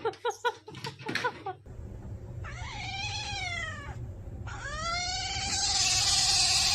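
Domestic cat giving two long, drawn-out meows, the first rising then falling, the second longer and growing louder toward its end. Before them, a rapid run of short clicks in the first second and a half.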